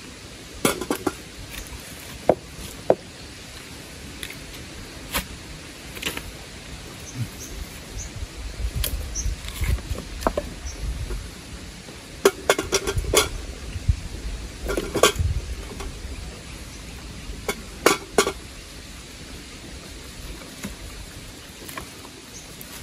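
Scattered knocks and light clatter of objects being handled, a few in quick clusters, over a steady background hiss. A low rumble comes and goes in the middle.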